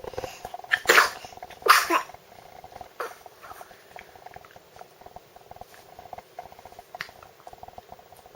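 Two sneezes about a second apart, the second one ending in a short snort. A soft steady rhythmic sound continues underneath, with a few faint clicks later on.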